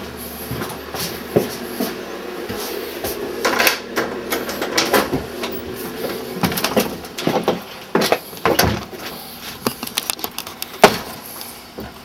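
A house door being opened to go outside: a run of handling clicks, latch knocks and bumps, with one sharp knock near the end.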